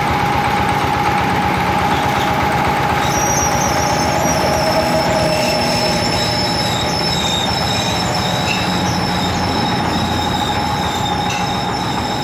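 Engine-driven cable winch running: a small stationary engine runs steadily under the winch's load with a constant whine. Higher squealing tones from the drum and gearing join in about three seconds in.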